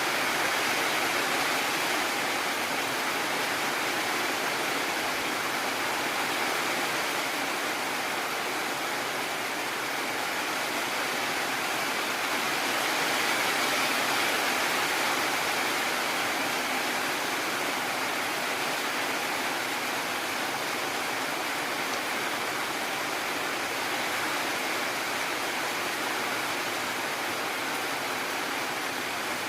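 Heavy rain falling steadily, a dense even hiss that swells slightly about halfway through. No thunder is heard.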